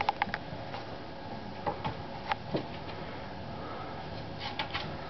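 Basset hound puppies scuffling and mouthing a plush toy on carpet: scattered sharp clicks and rustling, bunched at the start, around two seconds in and near the end, with a couple of short falling squeaks around two seconds in.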